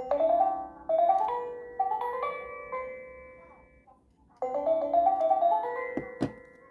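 Electronic toy teapot (Fisher-Price learning teapot) playing two short chime-like jingles of stepped electronic notes, with a brief pause between them. Near the end come a couple of sharp plastic clicks.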